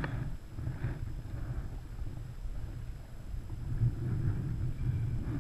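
Low, uneven rumble of wind buffeting the camera microphone.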